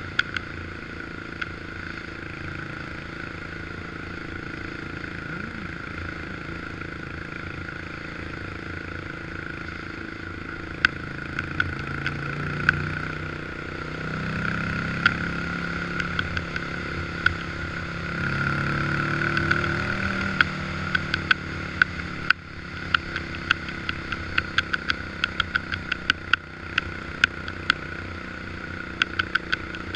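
1986 Honda FourTrax 350 ATV's air-cooled single-cylinder four-stroke engine running under way, getting louder for several seconds in the middle and dropping off briefly after that. Frequent sharp clicks and rattles, most of them in the second half.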